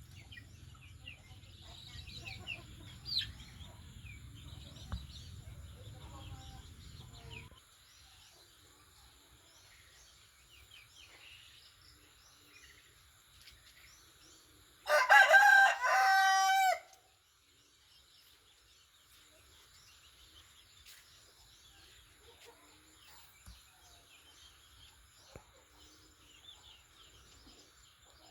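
A rooster crows once, loud and drawn out over about two seconds, midway through, over faint chirping of small birds. A low rumble underlies the first quarter and then stops.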